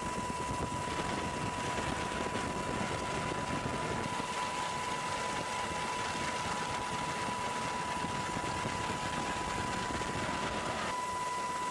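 Steady aircraft engine noise: an even rush with a constant high whine running through it.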